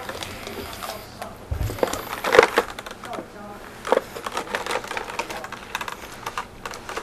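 Scattered clicks and knocks of handling, with two louder knocks about two and a half and four seconds in.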